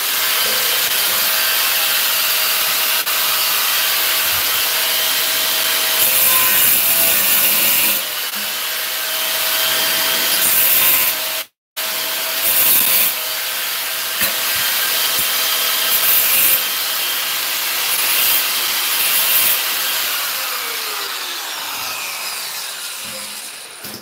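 Handheld angle grinder cutting ceramic floor tile, running steadily with a motor whine and surging louder as the disc bites, with a brief break about halfway. Near the end the motor slows down.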